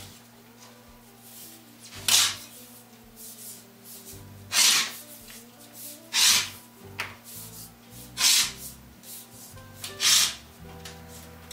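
Hard rubber tire stock rubbing and sliding as it is drawn off its coil and laid around a carriage wheel's rim. There are five loud swishes about two seconds apart, over soft background music.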